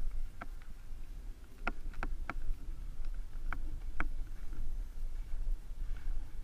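Onboard sound of a HobbyZone Super Cub RC plane taking off from packed snow: a steady low rumble of wind and propeller on the plane-mounted camera, with about six sharp clicks and knocks from the airframe over the first four seconds.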